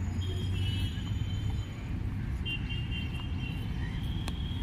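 City street ambience: a steady low rumble of traffic, with high thin whistling tones twice, the second lasting about two seconds, and a single sharp click near the end.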